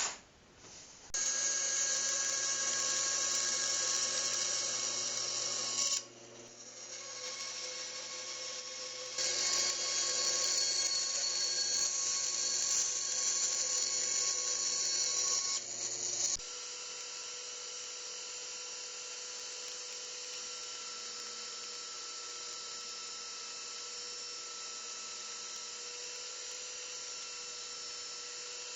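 Electric power tool motor running loud with a steady whine, in two long stretches with a quieter dip between them, then cutting off abruptly to a lower steady hum.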